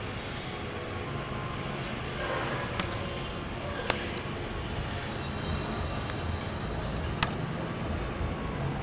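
Steady background hum and hiss with a few scattered single clicks, not the rapid continuous clicking of a faulty amplifier protection relay: the relay has stopped chattering after two capacitors were replaced.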